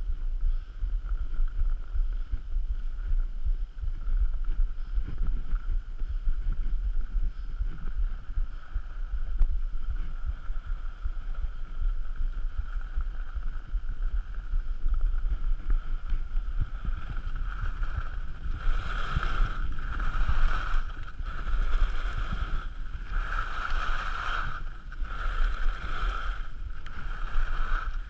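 Skis sliding and scraping on groomed snow, with wind buffeting the microphone. From about two-thirds of the way through, the skis give a scrape about once a second, one with each turn.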